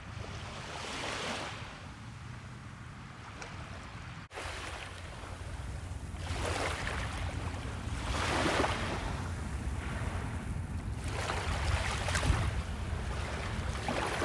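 Small surf waves breaking and washing up the beach in a series of surges, over a steady low rumble of wind on the microphone. The sound drops out for an instant about four seconds in.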